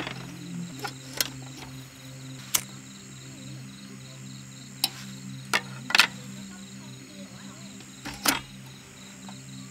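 Metal hurricane-style lantern set down on a wooden table and handled: a string of sharp metallic clicks and clinks from its bail handle, glass globe and base, the loudest about six seconds in and a longer one near the end, over a steady low hum.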